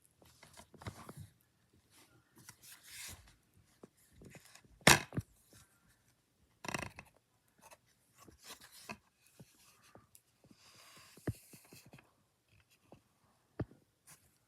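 DVD packaging being handled: rustling and tearing of plastic wrap with scattered clicks, and one louder knock about five seconds in.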